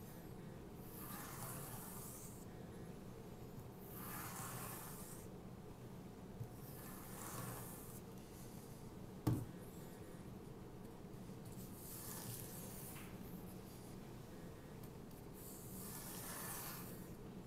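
Convex knife blade drawn across a leather bench strop loaded with green compound: faint rasping strokes of about a second each, coming every second or two with a longer pause in the middle. A single sharp tap about nine seconds in.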